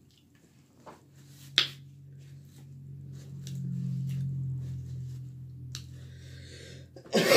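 Fingers being wiped with a paper napkin, a faint rustle, with one sharp click about a second and a half in. A low steady hum runs underneath, swelling in the middle and fading again.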